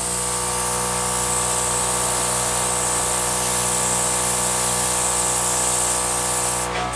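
Air gun blowing a steady stream of air across the wet paint: a motor hum under a strong high hiss, switched on abruptly and cut off just before the end.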